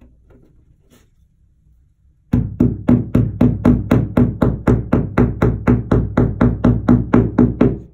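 Small hammer lightly tapping a plastic wall anchor into drywall to seat it flush: a fast, even run of about five knocks a second, starting about two seconds in and stopping just before the end.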